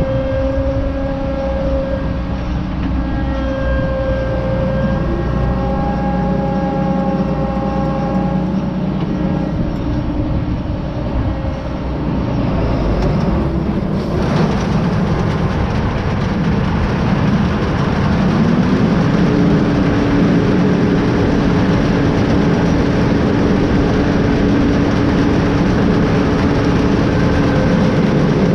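John Deere 9500 combine running: a steady machine hum with whining tones. About halfway through it turns into a louder rushing noise, and a few seconds later a tone rises in pitch and holds higher.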